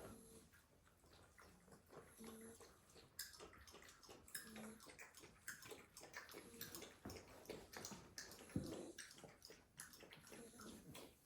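Faint snoring and snuffling of sleeping Staffordshire bull terrier puppies: short soft nasal tones every couple of seconds, with small clicks scattered between them and one louder low thump near the end.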